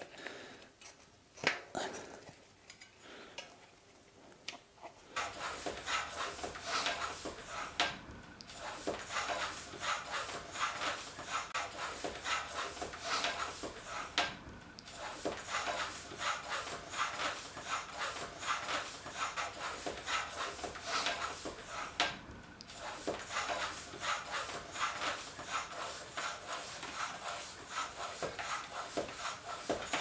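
Floor pump with a pressure gauge inflating a bicycle tyre's inner tube: steady repeated strokes, each a rubbing rush of air, starting about five seconds in and broken by three brief pauses. Before the pumping starts there are a few faint clicks.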